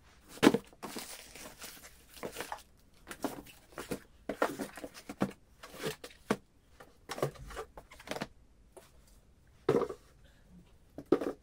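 Cardboard mail packages and books being handled: lifted, shuffled, set down and slid onto a wooden bookshelf, giving a run of short rustles and knocks.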